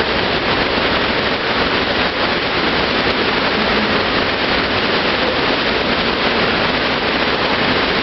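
Loud, steady rush of water from an artificial standing-wave surf ride, a sheet of water pumped at speed up a padded ramp.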